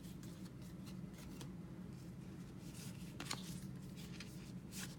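Baseball trading cards being handled and flipped through one after another: faint rustling and sliding of card stock, with one sharper click a little over three seconds in.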